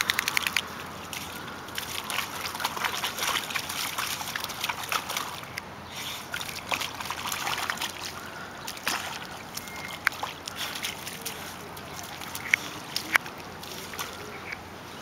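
A pit bull splashing and sloshing through a shallow muddy puddle, with a quick run of splashes at the start and scattered splats and drips after.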